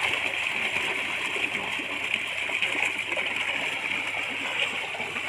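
A netted crowd of pangasius catfish thrashing at the water's surface, a steady dense splashing and spattering.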